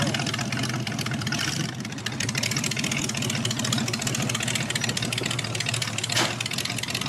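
A 1932 Ford pickup hot rod's 302 small-block Ford V8 running at low speed as the truck creeps along and pulls in to park. It runs steadily, with a short louder burst about six seconds in.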